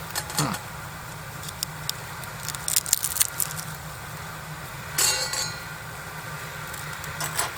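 Tableware being handled: scattered light clinks and knocks, a quick run of them a few seconds in, and a sharper ringing clink about five seconds in, over a steady low hum.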